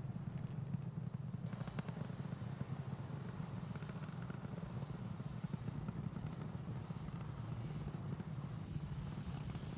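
Falcon 9 rocket's first-stage engines, a steady low rumble with a hiss above it. The hiss widens to higher pitches about a second and a half in.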